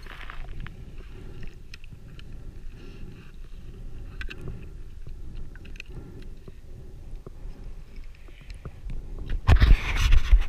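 Underwater sound through a camera's waterproof housing: low steady water rumble with scattered faint clicks, then a louder rush of moving water and bubbles against the housing near the end.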